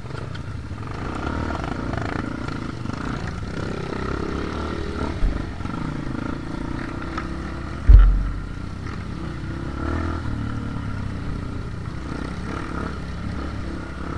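Off-road motorcycle engine running at changing revs while riding a rough dirt trail. A sharp, heavy low thump about eight seconds in is the loudest moment, and a smaller one comes a few seconds before it.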